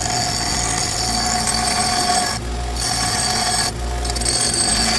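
Angle grinder running against metal while grinding a semicircular notch freehand, with a steady high whine, dropping out briefly twice about two and a half and three and a half seconds in as the disc comes off the work.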